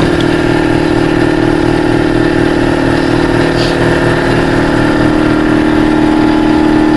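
An engine or motor running steadily with an even hum and a fast low pulse.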